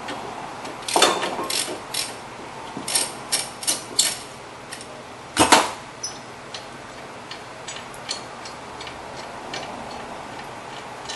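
Metal clinks and taps from a rusted brake caliper mounting bracket being worked loose from its mount by hand. The taps come a few a second at first, with one louder knock about five and a half seconds in, then fainter ticks.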